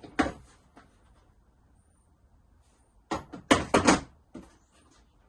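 Hard plastic parts of a stackable toolbox being handled: a single knock at the start, then a quick run of sharp clicks and knocks about three seconds in, as the small organizer trays are taken out.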